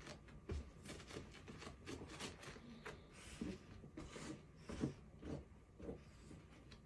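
Miniature pinscher pawing and burrowing into a blanket on a couch: faint, irregular rustling and scratching scuffs with a few soft thumps.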